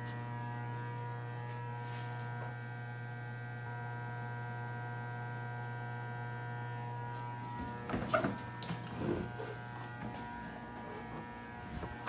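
Steady electrical hum, a low drone with higher overtones above it, with a few short knocks and handling sounds about eight to nine seconds in.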